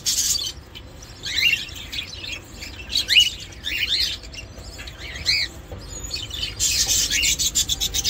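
Small aviary birds chirping: a handful of short, quick rising cheeps scattered through the first several seconds. About two-thirds of the way in, a louder harsh rustling noise starts and keeps on.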